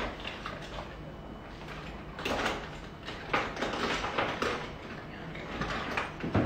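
Things being handled: irregular clatter, rustling and knocks, with the louder knocks about two and a half seconds in, then near three and a half and four and a half seconds.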